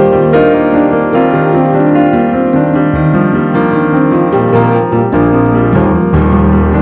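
Background music: an instrumental piano piece with quick, even notes over a changing bass line.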